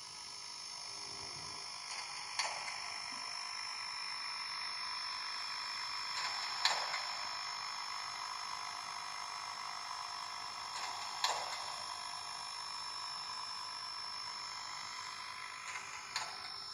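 H0n3 model train running slowly, a Colorado & Southern Mogul steam locomotive hauling stock cars: a steady thin whine and hiss, with a sharp click about every four or five seconds.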